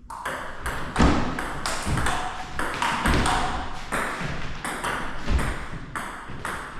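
Table tennis rally: a fast run of sharp ball clicks on bats and table, about three to four a second.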